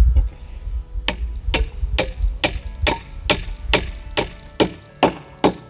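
Hammer driving a nail into a sawmilled cedar framing stud: about a dozen sharp, evenly spaced blows, a little over two a second.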